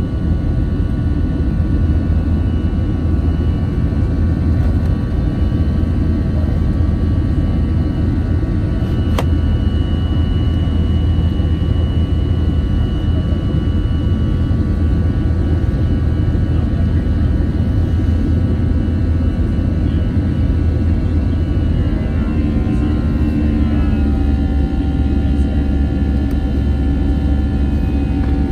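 Airbus A320 jet engines and airflow heard from inside the passenger cabin while climbing: a steady loud rumble with several steady whining tones over it. About 22 seconds in, the tones waver and settle at new pitches, as with a change in engine thrust.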